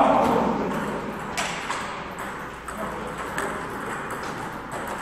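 Table tennis balls clicking against paddles and tables at an irregular pace, from this table and neighbouring ones in a large hall. A brief louder burst right at the start stands out above the clicks.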